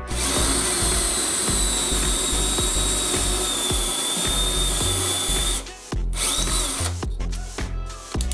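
Bosch 18 V cordless power tool's motor running with a steady high whine for about five and a half seconds, stopping, then spinning again briefly. Background music with a steady beat plays underneath.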